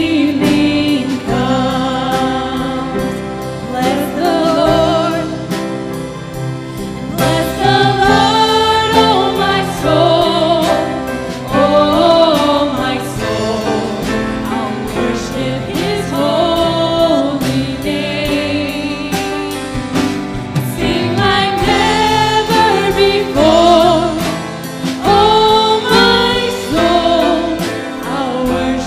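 Church worship team singing a praise song with instrumental accompaniment and a steady beat.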